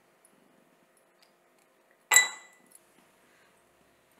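An ice cube dropped into a tall glass tumbler, one sharp clink about two seconds in with the glass ringing briefly after it.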